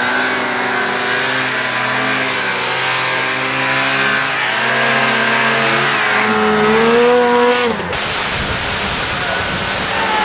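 Snowmobile engine running hard at high revs, its pitch wavering, then rising and falling about seven seconds in. The sound changes abruptly near eight seconds to a noisier rushing engine sound without a clear pitch.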